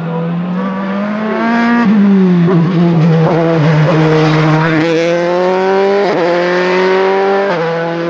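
Dallara F305 Formula 3 single-seater's engine at full throttle. The note climbs through the gears, with gear changes about two seconds in, about six seconds in and again near the end.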